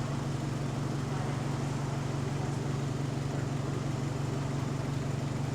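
Bus engine running steadily with a constant low drone, the note of its exhaust leak.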